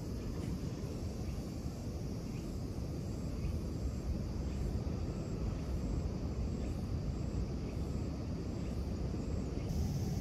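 Steady low outdoor rumble with no distinct event, the kind of background drone that wind on the microphone or distant traffic makes.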